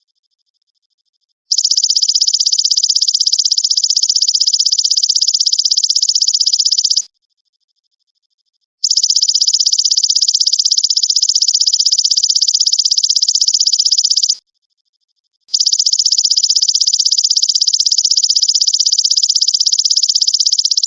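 Belalang emas (golden grasshopper) singing: a loud, high, rapidly pulsed trill in three bursts of about five and a half seconds each, with pauses of a second or two between them.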